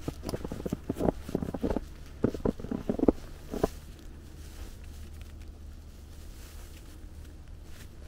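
Footsteps crunching in snow, an irregular run of short crunches that stops about halfway through, leaving only a faint steady low background.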